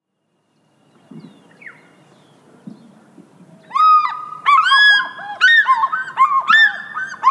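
Geese honking: a run of loud, repeated calls that starts a little before four seconds in, several of them overlapping.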